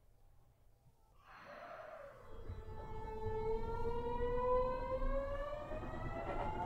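Kyoto Municipal Subway Tozai Line 50 series train pulling away from a station, heard from inside the car. A short hiss about a second in, then the traction inverter and motors whine in several tones that climb slowly in pitch as the train accelerates.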